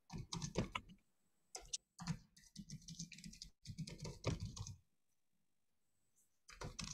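Faint, irregular tapping of typing on a computer keyboard, stopping for about a second and a half shortly before the end.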